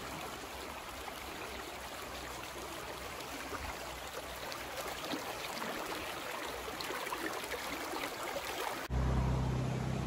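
Steady rushing of a shallow, rocky mountain creek flowing over stones. About nine seconds in it gives way abruptly to a louder, low rumble.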